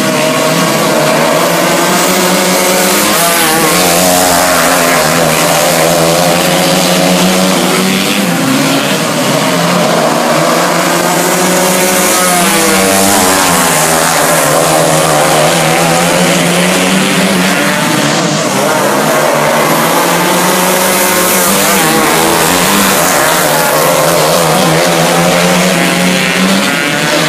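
Several 250cc winged dirt-oval racing karts racing around the track, their engines revving up and easing off again and again as they pass through the turns and along the straights.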